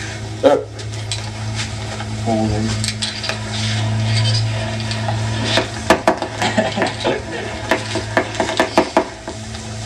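A run of sharp clicks and knocks from hard objects being handled, packed most densely in the second half, over a steady low hum.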